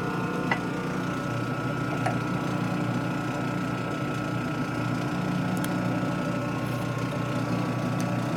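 Metal lathe running with a steady hum holding several fixed tones, with a few faint light clicks.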